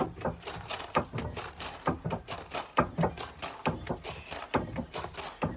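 Footfalls of trainers stepping up onto and down from a low step on wooden decking during step-up exercise, in a steady rhythm with a heavier thud about once a second.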